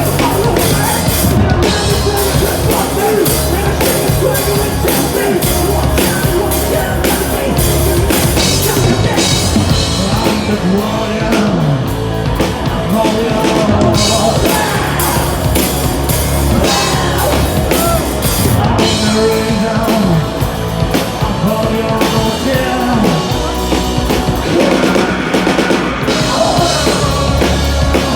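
Live hard rock band playing: distorted electric guitars, bass guitar and a pounding drum kit, with a singer's vocal line through the middle part.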